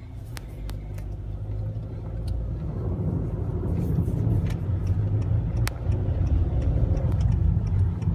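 Low rumble of a car on the move, heard from inside the cabin, growing louder over the first few seconds and then holding steady, with scattered sharp clicks.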